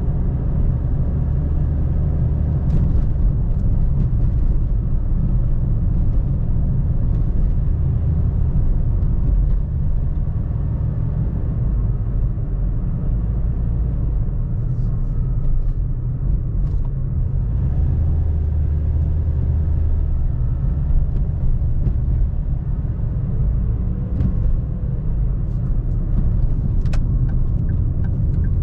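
Car driving at a steady pace: continuous low rumble of engine and tyre noise.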